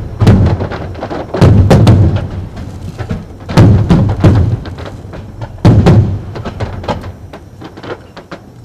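Bruscella Fireworks aerial shells bursting overhead: a run of loud booms about a second apart, some in quick pairs, with crackling between them, thinning out and getting quieter near the end.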